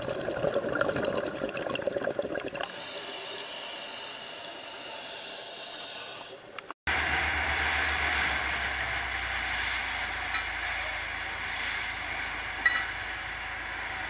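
Crackly underwater water noise picked up by a camera in its housing, which gives way to a quieter steady hiss. After a brief cut about 7 s in, a speedboat runs fast: a steady low engine hum under loud wind and hissing spray from the wake.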